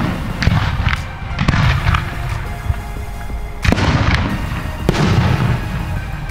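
Aerial fireworks going off: about five sharp bangs, three in quick succession in the first second and a half, then a louder one a little past halfway and another about a second later. Each bang trails off in an echoing rumble.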